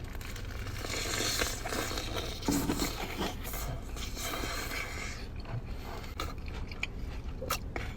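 Biting into crispy spicy fried chicken: a dense crunching of the coating for several seconds, then chewing with scattered sharp clicks and crackles.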